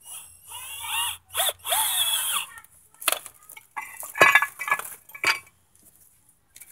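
Metal brake parts being handled: a steel caliper bracket scrapes and squeals against the rotor for about two seconds as it is slid into place, followed by several sharp metallic clinks of bolts and parts.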